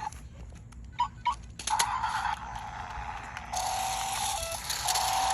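A few sharp plastic clicks from handling a toy remote control, then a steady electronic whine with hiss from the toy RC car that gets louder about three and a half seconds in, its pitch dipping briefly now and then.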